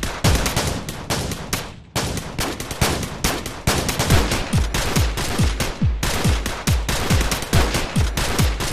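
Rapid bursts of automatic gunfire sound effects with heavy low booms, mixed into a driving music soundtrack.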